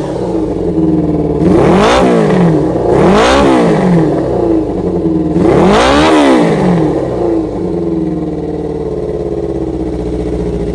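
Kawasaki Zephyr 400's air-cooled inline-four, breathing through pod air filters, revved by three quick throttle blips, each rising and falling back, about 2, 3.5 and 6 seconds in, then idling steadily.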